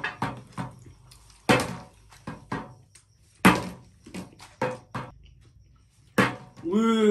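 A small plastic soft-drink bottle, partly filled with liquid, being flipped again and again and landing on a glass tabletop: about a dozen sharp, irregular knocks and bounces. A short vocal exclamation comes near the end.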